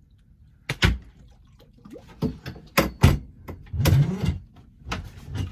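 Irregular knocks and bumps on a boat, about eight in a few seconds, as a man moves about the cockpit while playing a fish on a rod.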